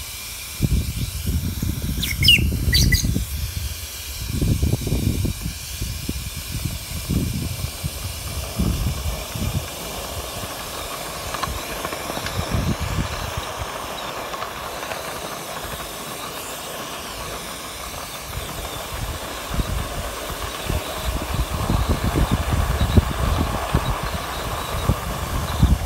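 Ride-on live-steam model of a K-28 narrow-gauge locomotive running: a steady steam hiss over an uneven low rumble, with two brief high rising squeals about two seconds in.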